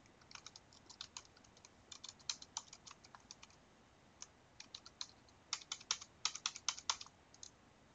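Keys of a computer keyboard tapped in quick keystrokes, typing in digits, in two runs with a short pause between them about halfway through.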